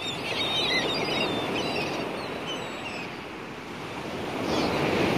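Gulls calling over the sea, with a run of high wavering cries in the first three seconds and a few more near the end, over a steady rush of sea water and wind.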